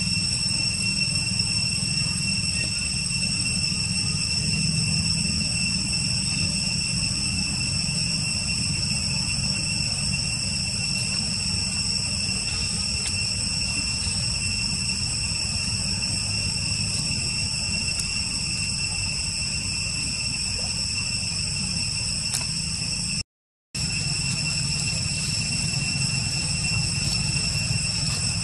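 Steady, high-pitched insect drone over a low rumble, unchanging throughout; it cuts out completely for about half a second near the end.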